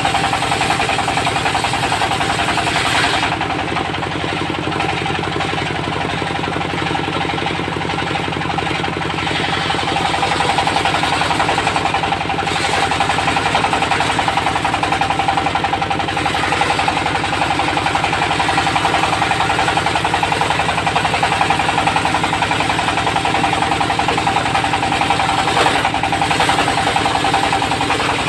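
Diesel engine of a portable circular sawmill running steadily with a rapid, even knocking beat and a steady tone over it. About three seconds in it eases off a little for several seconds, then comes back up.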